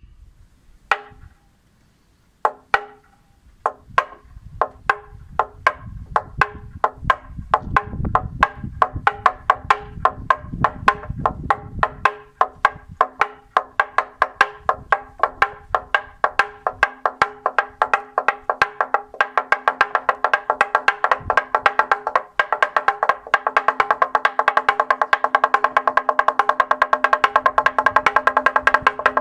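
Toaca, a long hanging wooden plank (semantron), beaten with a wooden mallet, the Orthodox call to prayer. One lone stroke comes first, then strokes about a second apart that speed up steadily into a fast, dense, even rhythm, with the plank ringing under the blows.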